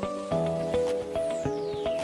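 Background music: a melody of short, evenly paced notes, each struck with a light attack, with a high falling sweep in the second half.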